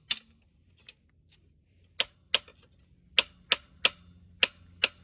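About eight sharp metallic taps of a hand tool striking steel engine parts, some with a brief ring. One comes at the start, then after a pause they come every third to half second. This is the work of knocking the cam gear loose on a Wisconsin V4 engine.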